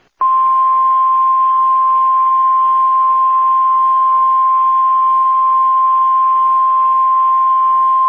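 NOAA Weather Radio 1050 Hz warning alarm tone: one loud, steady tone with a faint radio hiss beneath it. It is the alert signal that comes after the SAME data bursts and before an urgent watch or warning is read out, here a tornado watch.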